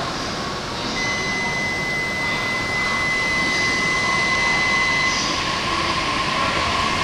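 An E7/W7-series Hokuriku Shinkansen train starting to pull out, heard as a steady rushing hiss. A steady high electronic tone sounds from about a second in and stops after about four seconds.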